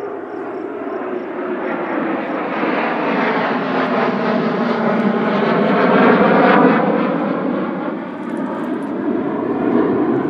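Two airplanes flying low overhead. Their engine noise swells to a peak about two-thirds of the way through, with a falling pitch as they pass, then eases before rising again slightly near the end.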